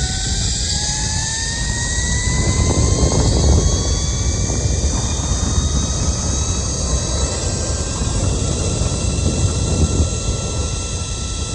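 An engine running over a steady low rumble, with a whine that rises slowly in pitch and then holds steady.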